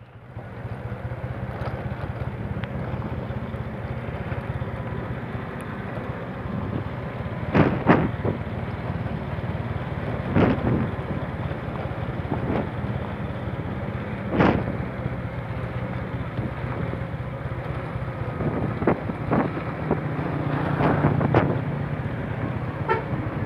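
Motorcycle engine running steadily at low speed with wind on the microphone. Several sharp knocks come through as the bike jolts over a rough, potholed gravel road.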